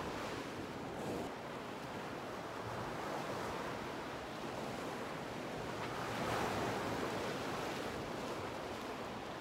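Ocean surf washing over shoreline rocks: a steady rush of breaking waves that swells about six seconds in.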